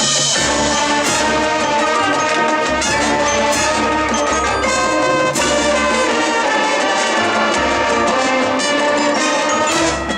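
Marching band playing loudly: brass carrying sustained chords over percussion.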